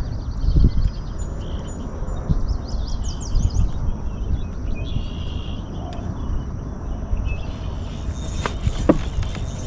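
Birds chirping, several quick rising chirps a few seconds in, over a steady low rumble. A few sharp clicks come near the end.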